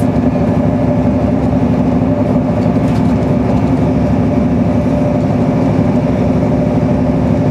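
Steady running noise inside a moving passenger train carriage: a continuous low drone with a steady hum.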